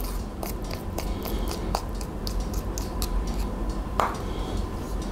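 Light clicks and taps of a pastry brush against a small bowl of sugar glaze as the glaze is dabbed and brushed onto a cake, with one louder knock about four seconds in.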